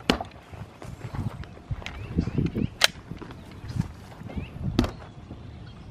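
Sharp knocks and clicks from a mini refrigerator's door being handled, the loudest about three seconds in, with soft footsteps on grass between them.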